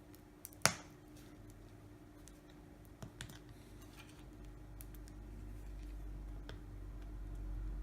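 Scattered small clicks and taps from handling phone parts and tools on a workbench: one sharp click about a second in, then a few lighter ticks, over a faint steady hum.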